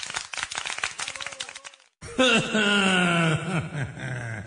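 A rapid patter of clicks cuts off suddenly about two seconds in. A deep male voice then starts, drawn out in long, wavering held notes like a groan or chant, as the shark puppet's voice begins.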